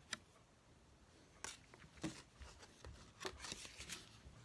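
Faint handling of game cards: a few soft taps and rustles as cards are flipped and laid down, one near the start, two about halfway through and a small cluster near the end.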